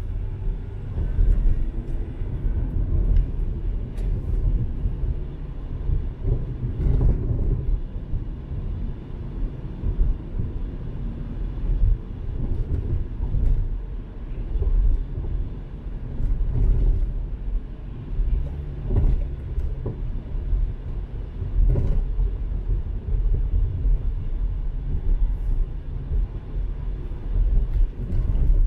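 Car driving on a road: a steady low rumble of the tyres and engine, with a few brief knocks from bumps.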